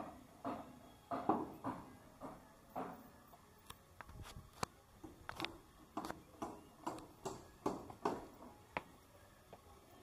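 Footsteps on stone paving and stone stairs, about two steps a second, as someone walks and then climbs a flight of steps.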